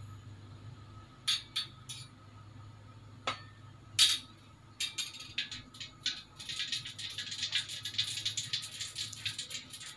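Cooking oil heating in a wok on a gas stove: a few scattered ticks, then from about five seconds in a light crackle of small pops that thickens as the oil gets hot.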